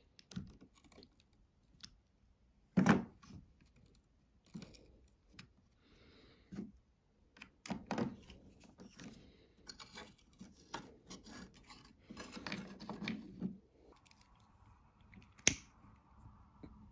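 Hand-tool work on a workbench: a screwdriver's metal tip scraping, pressing and tapping on small pieces of sheet metal and a plastic cap, with scattered clicks and knocks, the loudest a knock about three seconds in. Near the end comes a single sharp click, then a faint steady hiss.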